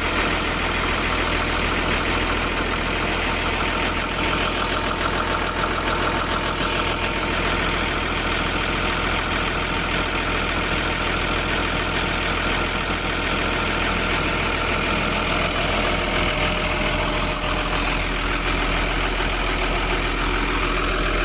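Volvo EW145B wheeled excavator's six-cylinder diesel engine idling steadily just after being started. The mechanics say it is misfiring and suspect its injectors.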